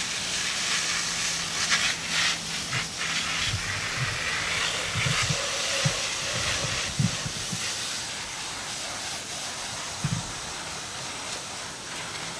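Garden hose spraying water onto an air conditioner condenser coil: a steady hiss as the foaming alkaline coil cleaner is rinsed off the fins. A few dull knocks come in the middle.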